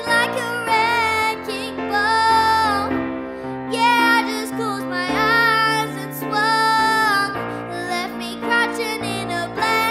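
A girl singing a pop song over a backing track, with long held notes that waver in pitch above low sustained bass notes.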